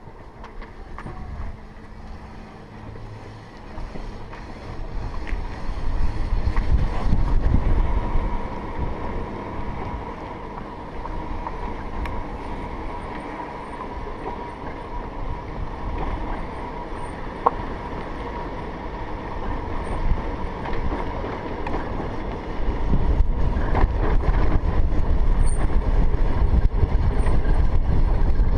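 Motorcycle engine running while the bike is ridden, heard from a helmet-mounted camera. It gets louder about five seconds in and again for the last five seconds or so.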